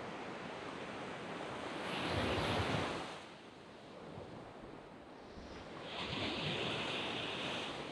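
Surf on a sandy beach: a steady wash of waves, with one wave breaking and rushing up about two seconds in and another swelling in about six seconds in.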